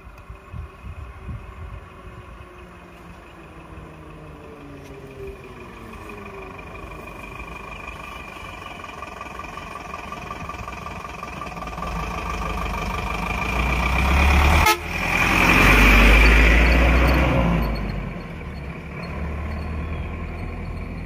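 Lorry engine running close by. It grows louder to a heavy rumble about three-quarters of the way through, then eases off. A steady high whine rides over it through the middle.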